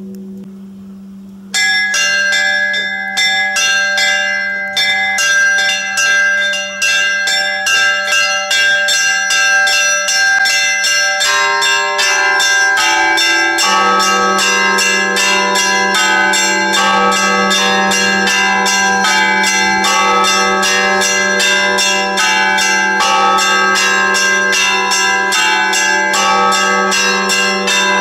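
Church bells: the low hum of a bell dies away, then about a second and a half in a rapid, clanging peal of several bells of different pitches starts, struck several times a second. About halfway through a deeper bell joins and the peal grows fuller.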